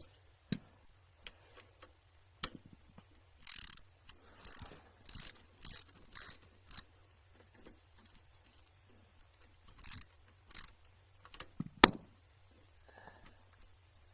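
Irregular metallic clicks and clinks of a socket ratchet and loose hardware while the bolts holding an Alpha moped's footrest are undone, with one sharper, louder click near the end.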